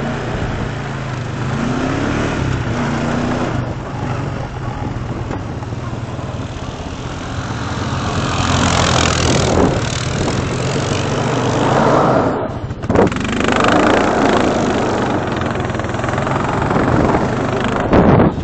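Quad ATV engine running and revving as the quad is spun and slid around on snowy ice, with surges of rushing noise, the loudest near the end.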